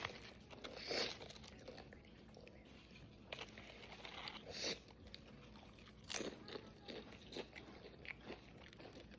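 Crunchy nacho tortilla chips being bitten and chewed, in short irregular crunches a second or more apart.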